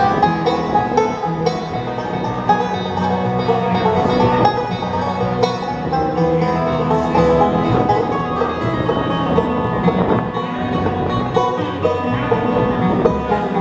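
Live bluegrass band playing an instrumental break with no singing, the banjo prominent over guitar.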